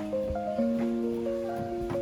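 Background music: a melody of held notes stepping up and down, with a few short knocks under it.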